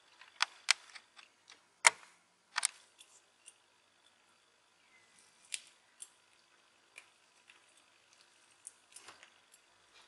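Scattered sharp clicks and taps of needle-nose pliers on a small plastic modular switch mechanism as a twisted copper wire is tightened onto it, several close together in the first few seconds, the loudest about two seconds in, then a few spaced ticks.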